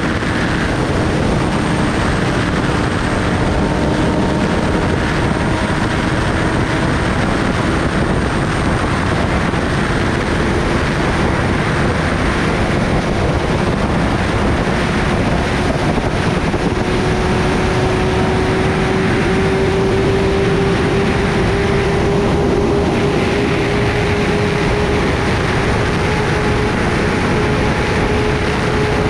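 Kawasaki Ninja ZX-10R's inline-four engine pulling steadily at highway speed, its pitch rising slowly as the bike gains speed, under heavy wind noise on the microphone.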